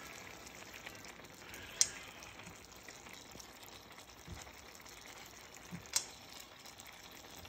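Faint steady bubbling of half-cooked rice simmering in a wide pan under beef pieces, with two sharp clicks, one about two seconds in and one about six seconds in.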